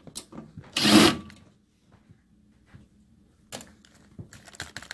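A Bosch cordless driver runs in one short burst about a second in, turning a screw in a sheet-metal panel cover. Scattered clicks and knocks of the tool and panel being handled follow near the end.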